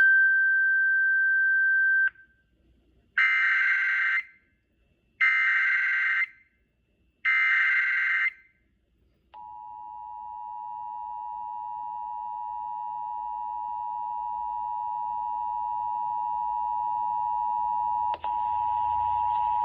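Emergency Alert System tones on an FM broadcast. A steady high tone lasts about two seconds. Three SAME digital header bursts follow, each about a second long and a second apart, and then about nine seconds in the two-tone EAS attention signal (853 and 960 Hz) starts and grows louder, with a brief break near the end.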